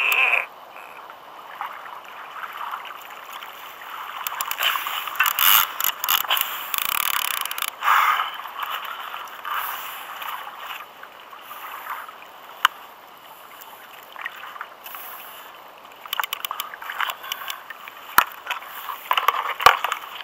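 Water sloshing and gurgling around a plastic sit-on-top kayak, with irregular scrapes and knocks of fishing gear against the hull.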